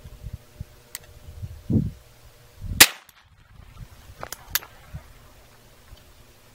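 A single gunshot about three seconds in from a Rossi single-shot 12-gauge shotgun firing a pistol-calibre cartridge through a Short Lane chamber adapter, preceded by a dull thump. About a second and a half later, two sharp metallic clicks as the action is broken open.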